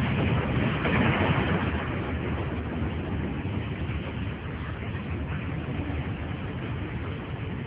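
Animated explosion sound effect: a steady, dense rumble of noise from a blast levelling the village, easing slowly as it goes.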